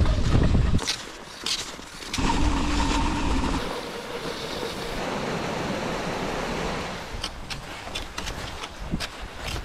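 Wind buffeting the microphone in gusts while cross-country skiing, over a steady hiss of skis gliding on groomed snow. In the second half, sharp irregular clicks of ski poles planting in the snow.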